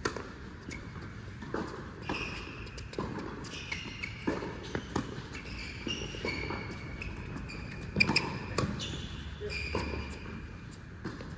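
Tennis balls being hit by rackets and bouncing on a hard court, a string of sharp irregular pops, the loudest pair about eight seconds in, mixed with short high squeaks of shoes on the court.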